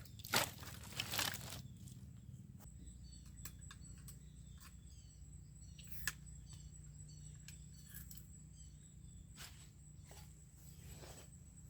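Footsteps and rustling in the first second or so, then scattered sharp clicks and a run of quick, high little bird chirps, over a steady faint high tone.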